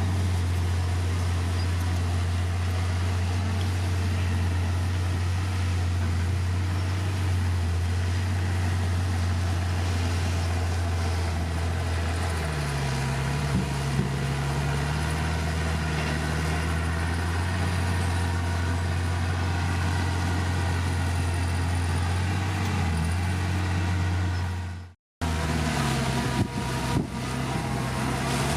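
Heavy diesel engine of earthmoving machinery running steadily with a deep, even drone, joined about halfway through by a second, higher engine note. The sound cuts out for a moment near the end, then the engines carry on.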